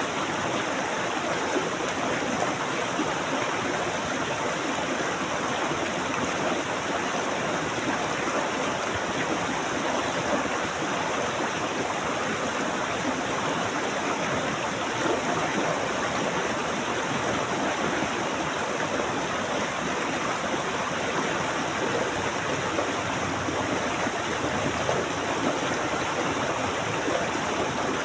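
Stream water flowing steadily over rocks, a continuous even rushing and babbling.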